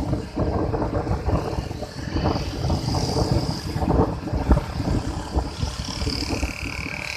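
Road traffic heard from a moving vehicle, with gusty wind rumbling on the microphone.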